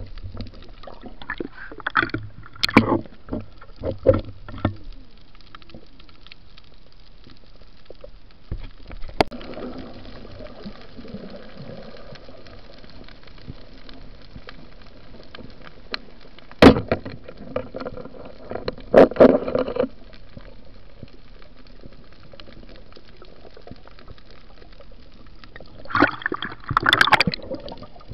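Underwater sound picked up by a camera in a waterproof housing: a steady muffled hiss of water with irregular bursts of bubbling and gurgling, and one sharp knock about two-thirds of the way through.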